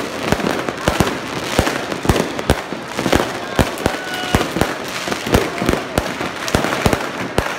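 Fireworks going off in many places at once: a dense run of overlapping bangs, several a second, with crackling between them.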